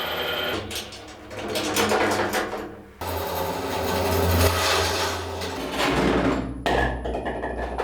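Wood lathe turning sounds, cut together from several short clips: noisy scraping or sanding against a spinning wood-and-epoxy piece over a low, steady motor hum, changing abruptly three times.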